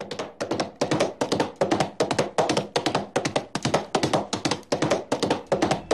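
Quick, sharp percussive taps in a fast, clustered rhythm, several a second.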